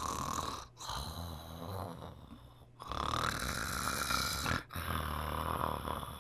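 A person snoring in long, rasping breaths, about four in a row with short pauses between them: someone fallen asleep.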